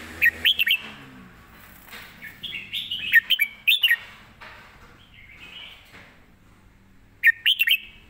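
Caged red-whiskered bulbul singing: three short, quick phrases of whistled, bending notes, one near the start, a longer one around three seconds in, and one near the end.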